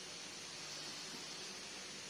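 Faint, steady hiss of background noise, with no distinct sound event.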